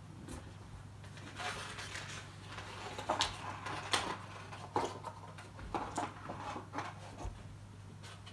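Hands working thin globe pieces of a kit star projector lamp, bending and fitting their tabs: irregular small clicks and short rustling scrapes, over a faint steady low hum.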